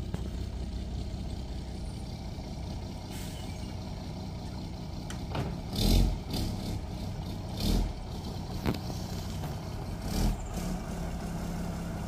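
Large vehicle's engine running steadily as it manoeuvres slowly, with four short, sharp knocks or cracks about six, eight, nine and ten seconds in, the first the loudest.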